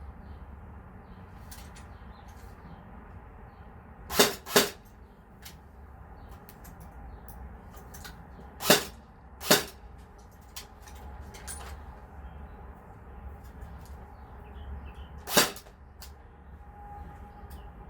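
Tippmann Air Raid AR6BB airsoft electric gun firing single semi-automatic shots: two quick shots about 4 s in, two more around 9 s, and a last one near 15 s.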